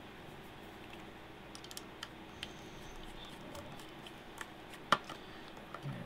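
Scattered small clicks and taps of a laptop hard drive, its drive tray and small screws being handled, with one sharper click about five seconds in.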